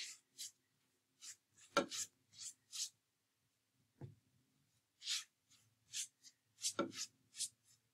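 Faint, repeated swishes of a paintbrush's bristles brushing gesso across a wooden panel board, short strokes one after another, with three soft knocks among them.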